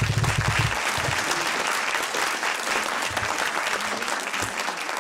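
Audience applauding, many hands clapping together, with a low rumble in the first second and the clapping easing slightly toward the end.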